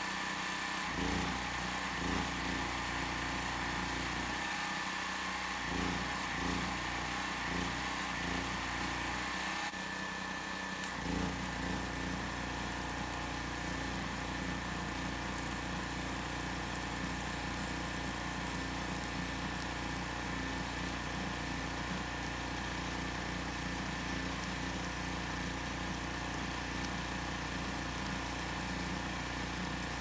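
Generac GP5500 portable generator engine running steadily, powering a stick welder. In the first ten seconds there are a few short arc strikes, then from about ten seconds in a continuous arc crackle as a bead is run on steel square tube.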